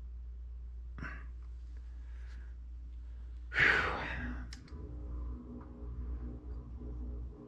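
A person lets out one loud, short breath, like a sigh or a puff, about three and a half seconds in, over a steady low hum. A couple of small clicks follow, with a faint breathy rustle earlier, about a second in.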